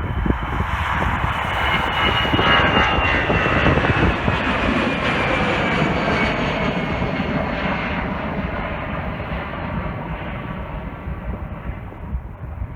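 Airliner jet engines passing, a loud rushing noise with a whine that falls slowly in pitch as the aircraft goes by, then fading away near the end.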